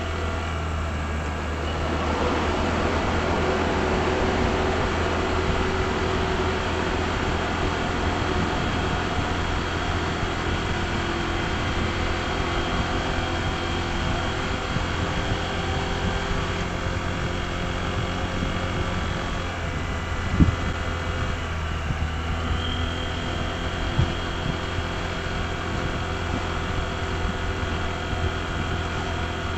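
Honda ADV160 scooter's single-cylinder engine running at a steady pitch while riding, over road and wind noise. There are two brief knocks in the second half.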